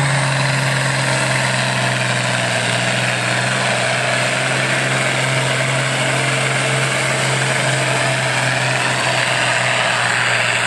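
International Harvester 1066 tractor's six-cylinder diesel engine running hard and steady at full power, pulling a weight sled; its pitch holds level throughout.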